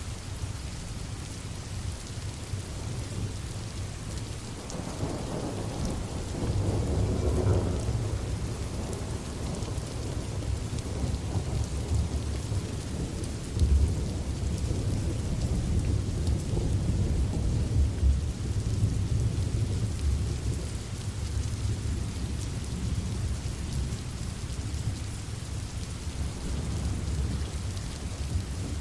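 Steady rain with a long roll of thunder. The rumble builds about five seconds in, jumps briefly louder near halfway, and rolls on before easing off.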